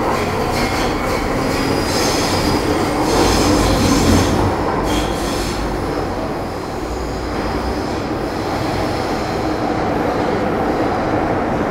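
Running noise heard from inside a Metro Cammell M-Train metro car with GEC GTO chopper traction, moving through the tunnel. A high wheel squeal rises above the rumble from about two to five seconds in.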